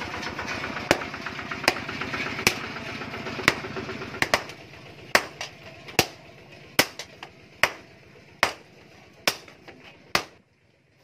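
Hand hammer forging a red-hot steel chainsaw bar on a steel post anvil: sharp ringing blows at a steady pace of a little more than one a second, with a few lighter taps in between. A steady background noise drops away about four seconds in.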